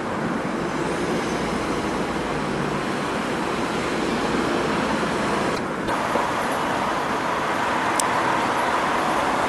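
Steady street traffic noise of passing cars, with a brief break where the shot changes and a short sharp click about eight seconds in.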